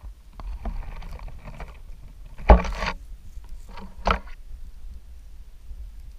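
Handling noise on the camera as a Barbary macaque bumps and moves it: close rustling, then two knocks about a second and a half apart, the first the louder, over a low rumble.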